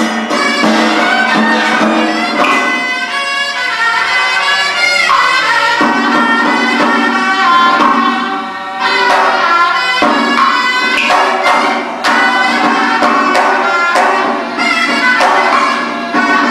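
Traditional Vietnamese ritual music: a reedy wind instrument plays a wavering, sliding melody over a steady low note, with occasional percussion strikes.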